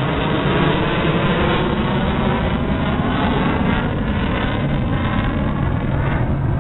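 Fighter jet's engines in flight overhead, a loud, steady rumbling noise with no break.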